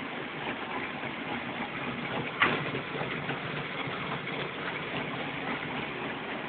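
Corn-flattening machine running steadily with a mechanical hum and rattle, with one sharp click about two and a half seconds in.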